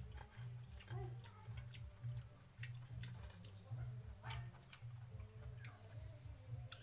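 Eating sounds: fingers mixing and scooping basi pakhala (rice in water) from steel bowls and picking at greens, making scattered light clicks, taps and wet squelches, over a low pulsing drone.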